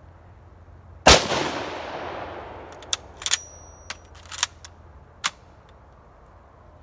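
A 1938 Mosin-Nagant M91/30 bolt-action rifle (7.62×54mmR) fires one shot about a second in, its echo dying away over the next two seconds. The bolt is then worked with a string of sharp metallic clacks, one with a brief high ring, cycling the rifle for the next round.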